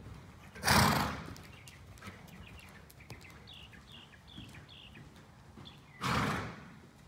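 Two short, loud rushes of noise, about five seconds apart, each dying away within half a second. Between them come faint hoofbeats on the arena sand and a run of four quick bird chirps.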